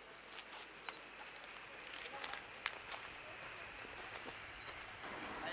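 Cricket chirping in an even rhythm, about two to three chirps a second, starting about two seconds in, over a steady high insect hiss.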